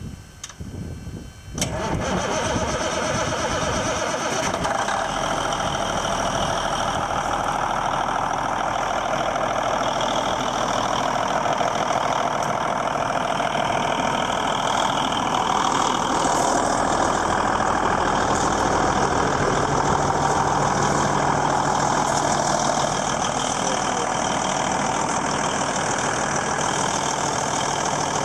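Cummins N14 inline-six diesel in a 2000 Freightliner FLD 120 cranking briefly and catching about a second and a half in, then idling steadily.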